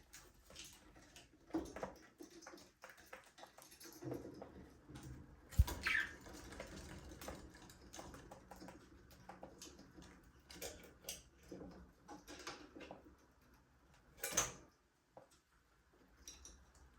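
Budgerigars chirping and chattering in short, scattered calls, with a louder burst of calls near the end. A single sharp knock sounds about five and a half seconds in.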